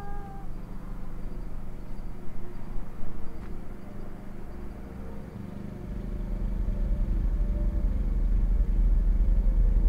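Low steady rumble and hum that swells louder from about six seconds in, after the tail of a howl fades out at the very start.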